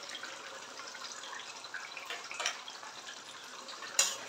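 Jackfruit and potato curry gravy simmering in a kadai on medium flame, bubbling with small soft pops. A single sharp clink about four seconds in.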